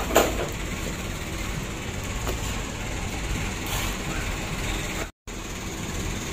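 A steady low mechanical hum, engine-like, with a few faint light clicks of small metal parts being handled. The sound cuts out for an instant near the end.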